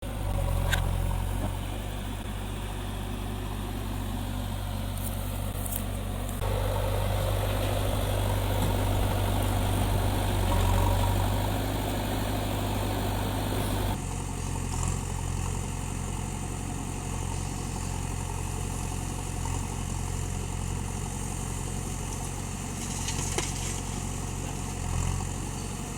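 Diesel engines of a backhoe loader and tractors running with a steady low drone. The sound shifts abruptly about six and fourteen seconds in.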